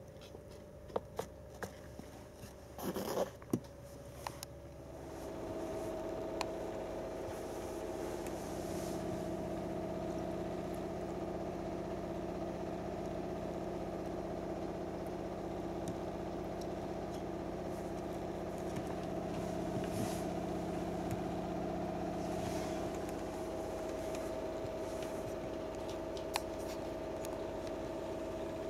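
A few sharp clicks and a short rustle of handling, then a steady hum with several held tones comes in about five seconds in and carries on evenly.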